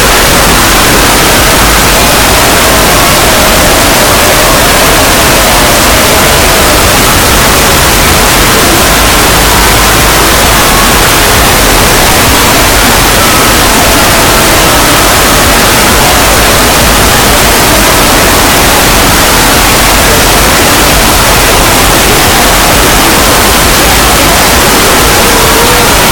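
Very loud, constant static-like noise at near full volume, hissing evenly across the whole range, with faint wavering tones buried underneath.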